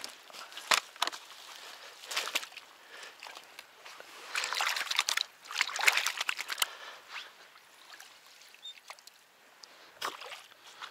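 Water sloshing and splashing as a fishing keep net is shifted in the shallows, with a few sharp knocks in the first couple of seconds and the splashing heaviest in the middle.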